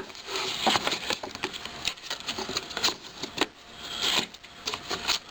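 Irregular light clicks and knocks, with a short rustle about four seconds in.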